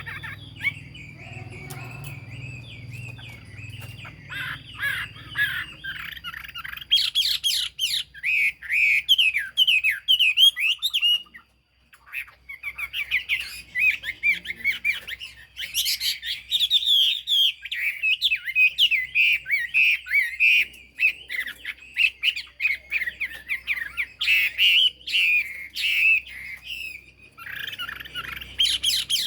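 Chinese hwamei singing a long, rapid run of varied, swooping whistled phrases, with a brief pause a little before the middle.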